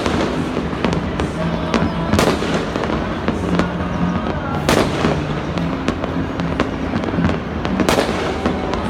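New Year fireworks and firecrackers going off in a continuous crackle of bursts, with a few louder bangs about two, four and a half, and eight seconds in.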